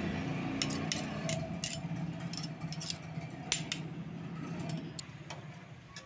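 Steel spoon stirring a boiling flour-and-jaggery mixture in a steel pan, clinking and scraping against the metal in a run of sharp clicks, the loudest about three and a half seconds in.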